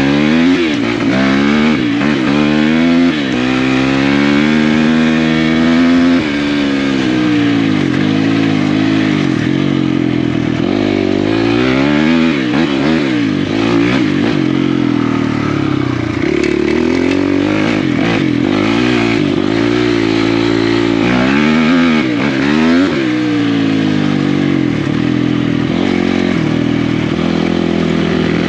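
Four-stroke single-cylinder dirt bike engine racing, the revs climbing and dropping again and again as the rider accelerates, shifts and backs off.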